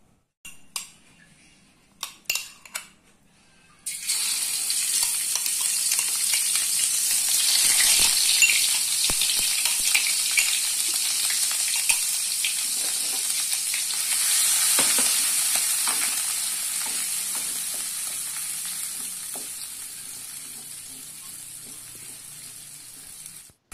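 Blended spice paste sizzling in hot oil in an aluminium wok and being stirred with a spatula. After a few sharp clicks, the frying starts suddenly about four seconds in and slowly dies down toward the end.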